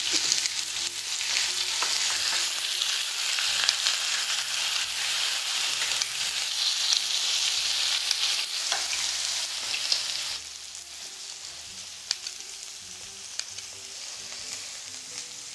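Pork belly and scallops sizzling on a hot griddle pan, with a few sharp clicks of metal tongs turning the meat. The sizzle drops noticeably quieter about ten seconds in.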